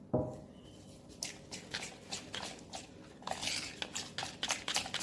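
A knock, then a spoon stirring a thin flour-and-water paste in a small bowl: quick clicks and scrapes that come faster from about three seconds in.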